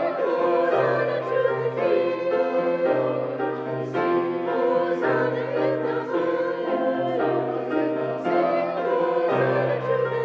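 Singing voices in a sacred anthem with instrumental accompaniment, the bass notes held and changing about once a second.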